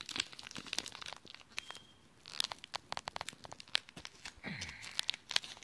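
Plastic packaging around a phone battery crinkling and tearing as it is pulled open by hand: irregular sharp crackles, denser and louder from about two seconds in.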